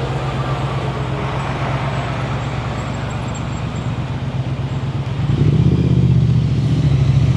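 Street traffic with a steady low engine hum; a vehicle gets louder about five seconds in.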